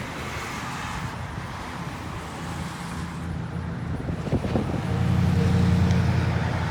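Steady car and road noise, growing somewhat louder about five seconds in.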